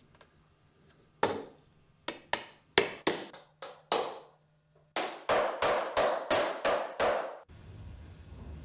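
Shoemaker's hammer driving small nails into a leather boot sole: sharp taps, spaced unevenly at first, then a quick run of about four blows a second that stops suddenly.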